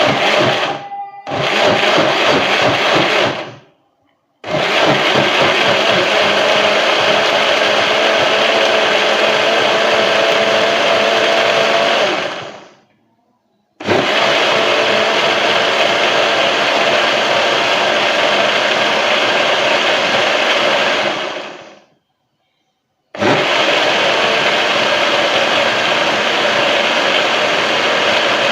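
Electric blender grinding cooked onion and fenugreek in their cooking water into a gel-like paste. It is pulsed twice briefly near the start, then run three times for several seconds each, winding down and stopping between runs.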